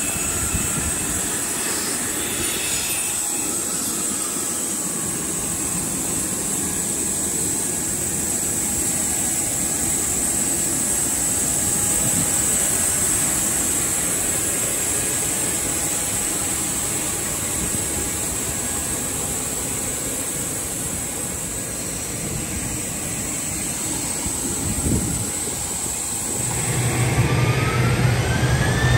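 Jet engine noise from a Boeing 737-800's CFM56 turbofans, a steady rushing noise that swells and fades slightly. About two seconds before the end a low steady hum and a rising whine come in.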